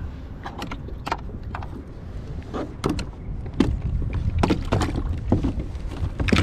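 Plastic and metal clicks and clunks of a Hobie kayak's pedal drive being handled by hand as a pedal is lifted and the drive adjusted, a few light clicks at first and then louder, quicker knocks from about halfway. Wind rumbles on the microphone throughout.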